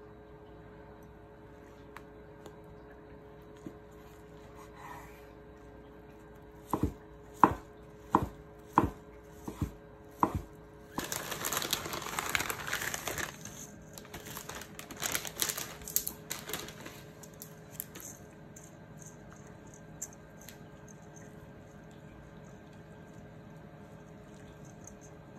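A kitchen knife cuts fried tofu (aburaage) on a wooden cutting board, knocking on the board about six times. A few seconds of loud crinkling follow from the plastic bag of glass-noodle vermicelli.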